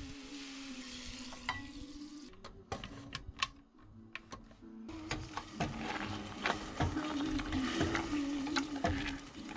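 Meat sizzling in a hot frying pan as it is stirred with a spatula. Then sharp metal clicks as a pressure cooker lid is handled, and near the end a wooden masher knocking and squelching in a saucepan of celery and potato.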